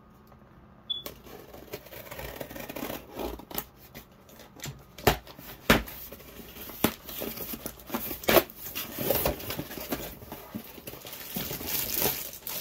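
Cardboard shipping box being opened by hand: tape tearing and flaps and packing material rustling and crinkling, with several sharp knocks. It starts about a second in with a click, and the crinkling grows louder near the end.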